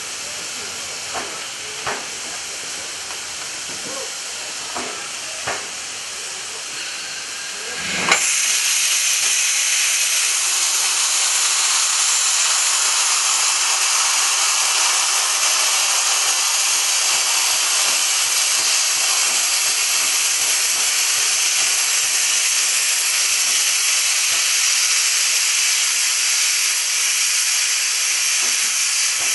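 Steam locomotive hissing steadily at a standstill, with a few light knocks in the first seconds. About eight seconds in, a much louder, high-pitched rush of escaping steam starts abruptly and holds steady.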